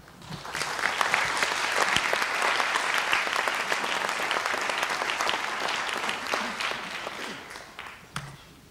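Audience applauding: the clapping builds up within the first second, holds steady, then fades away over the last couple of seconds.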